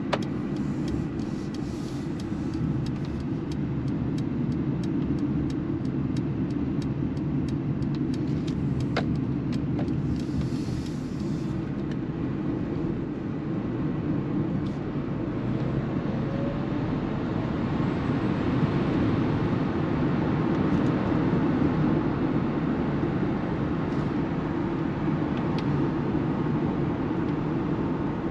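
Steady tyre and road noise inside the cabin of a Mercedes EQB 350 4MATIC electric SUV on the move, growing slightly louder after the first few seconds. Over the first dozen seconds a turn-signal indicator ticks evenly, a few clicks a second, then stops.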